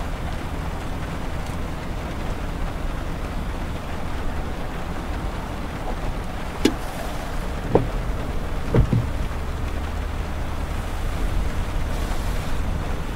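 Steady road and tyre noise of a car driving on a wet highway, heard from inside the cabin, with light rain on the windshield. Three short sharp taps come a little past halfway.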